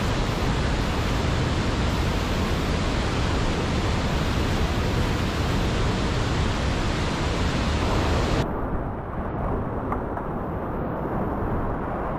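Steady rushing of whitewater pouring over a river waterfall and through the rapids below. About two-thirds of the way in, it suddenly turns duller, losing its high hiss.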